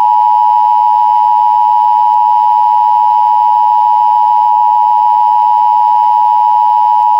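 Emergency Alert System attention signal: two steady tones at 853 and 960 Hz sounded together, loud and unbroken, the alarm that heralds an emergency broadcast message.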